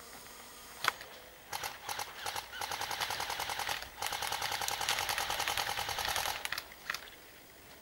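Airsoft gun firing rapid full-auto bursts: a long rattle of quick shots with a brief pause about four seconds in. A single sharp shot comes about a second in and another near the end.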